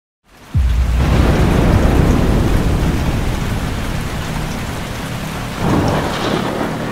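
Thunderstorm: a sudden clap of thunder about half a second in, then heavy rain with rolling thunder rumbling under it, swelling again about six seconds in.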